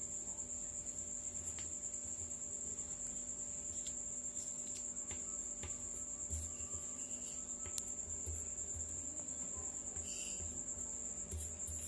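Steady, unbroken high-pitched insect trill, with faint scattered taps and low thumps from hands handling paper on a coconut shell.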